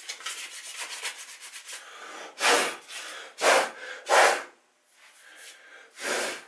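Sandpaper rubbing in quick short strokes over a patched fishing-rod cork grip. After about two seconds come three short, loud puffs of breath blowing the sanding dust off the cork, and a fourth near the end.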